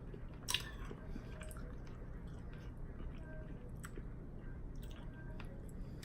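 A person chewing food, a mouthful of wonton soup and rice, with small wet mouth clicks and squishes; one sharper click about half a second in.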